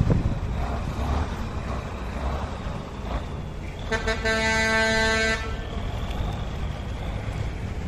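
One steady horn blast, about a second and a half long, over the low running of an off-road trial truck's engine, with wind on the microphone.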